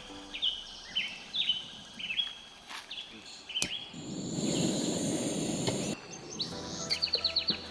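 A bird calling with repeated falling chirps about twice a second, then a sharp click and a butane-propane canister camping stove's burner running with a steady rush for about two seconds. Near the end, a quick series of high chirps.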